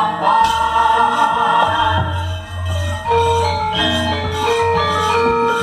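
Javanese gamelan ensemble playing: bronze bonang kettle gongs and metallophones struck with mallets give a run of ringing, overlapping notes over a low steady drone.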